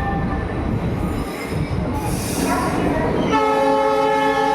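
Indian Railways WDP-4 diesel locomotive with a low rumble, then sounding its horn: a steady chord that starts about three seconds in and holds.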